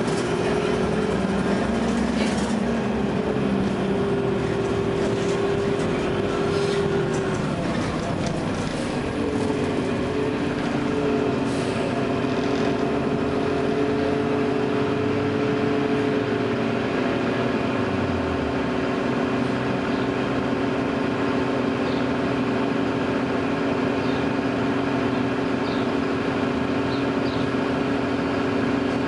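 Cabin of a 2009 Gillig Low Floor hybrid bus under way: the Cummins ISB diesel and Allison EP40 hybrid drive run with a steady whine. The whine's pitch wavers and shifts about eight seconds in, then settles at a lower tone.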